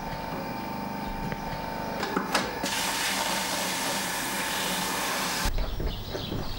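A loud, steady hiss that lasts about three seconds and cuts off suddenly, followed by footsteps on a paved street over a low rumble.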